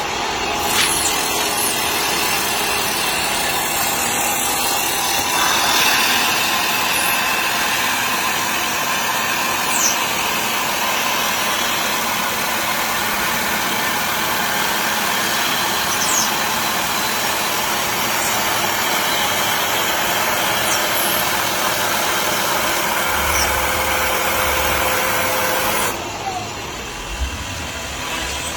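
Wood lathe running with a turning tool cutting the spinning wood: a steady, rough hiss of cutting over a faint motor hum. The cutting stops about 26 seconds in.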